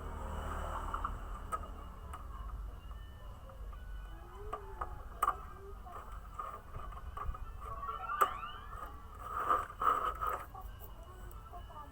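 Toy singing bird chirping in short scattered bursts, with quick rising whistles about eight seconds in and a busier run of chirps near the end, mixed with a few sharp clicks.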